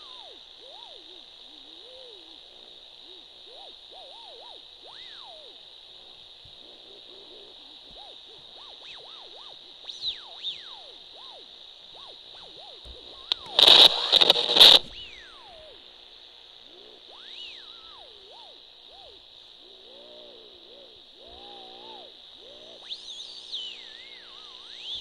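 Circuit-bent radio sounding through its own speaker: wavering electronic tones that slide up and down over a steady high hiss, with a loud burst of static a little after halfway.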